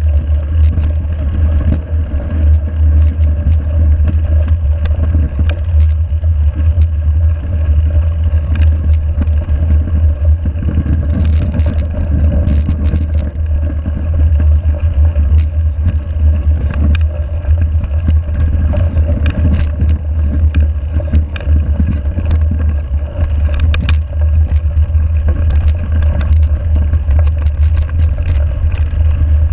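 Mountain bike rolling over snow, heard through a GoPro: a steady low rumble of wind buffeting and tyre noise. Scattered clicks and rattles from the bike come in clusters around the middle and again near the end.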